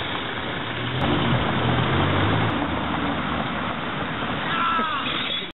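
Street traffic: a steady wash of road noise with a car engine passing, loudest a second or two in. A short, high chirp or squeak comes near the end.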